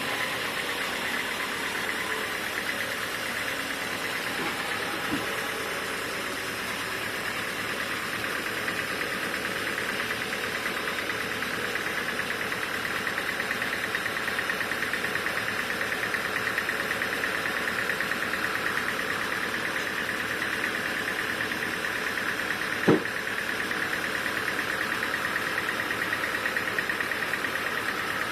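Sawmill machinery running steadily with an even mechanical drone, and one short sharp knock about three-quarters of the way through.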